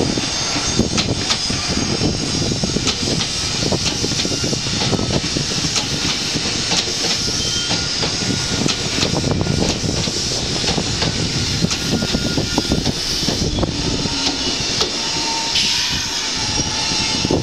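Red Meitetsu electric commuter train pulling into the station and slowing: a steady rumble and hiss with wheels clicking over rail joints. A thin steady tone comes in near the end.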